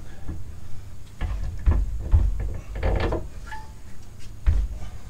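A string of irregular dull thuds and metal clunks as the front steering knuckle and brake caliper assembly is rocked by hand and the lower control arm pushed down to seat it during CV axle reinstallation.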